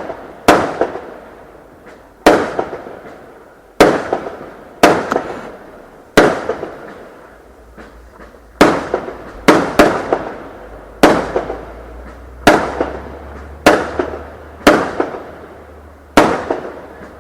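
Fireworks exploding: about fourteen sharp bangs at irregular intervals, one to two seconds apart and sometimes closer, each fading away over about a second.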